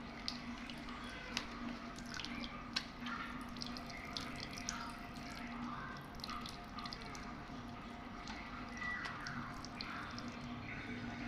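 Water dripping and splashing as a pet parrot bathes: scattered sharp drip ticks over a steady low hum.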